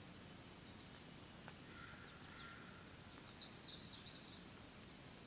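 Insects droning in one steady, high-pitched note, with a few short bird chirps about three to four seconds in.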